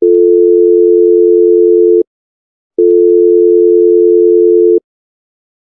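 Telephone call-progress tone from a mobile phone: a loud, steady low beep held for about two seconds, a short gap, then a second two-second beep. It is the tone of a call that is not being answered or has been cut off.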